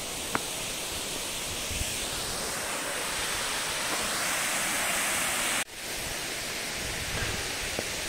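Waterfall: a steady rush of falling water that swells slightly, cuts out for an instant about five and a half seconds in, then carries on a little softer.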